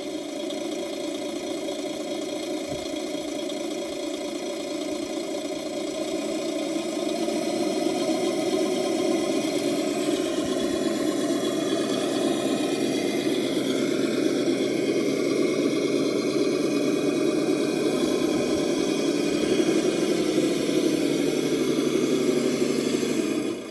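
Simulated truck engine sound played through the speaker of an ESS-DUAL+ sound module on a Traxxas TRX6 Unimog RC crawler, running steadily near idle. It grows a little louder from about a third of the way in as the truck drives.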